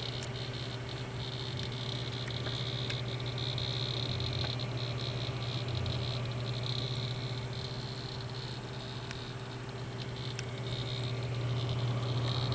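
Custom gaming PC making its problem noise: a steady low hum with a high buzzing whine that swells and fades, broken by rapid faint crackling ticks. The noise comes mainly when gaming and stayed the same after two different power supplies were tried.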